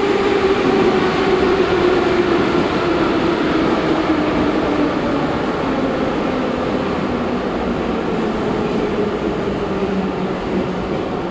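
Metro train slowing as it pulls into a station, heard from inside the car: the wheels rumble while a motor whine falls steadily in pitch, and the noise eases as the train slows.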